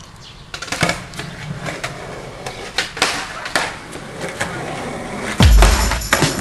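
Skateboard rolling on concrete with a string of sharp clacks from the board, then a heavy thud about five and a half seconds in.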